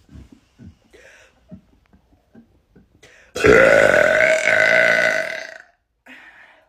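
A woman's single long, loud burp lasting about two seconds, starting about halfway through, after a few faint breaths.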